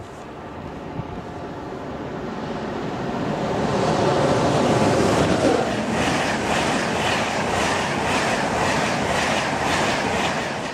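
Express passenger train passing through a station at speed. It grows louder as it approaches and is loudest as the front passes, about four to five seconds in. Then comes a steady rush of air and wheels, with a quick even clatter of the coaches' wheels over the rails as they sweep by.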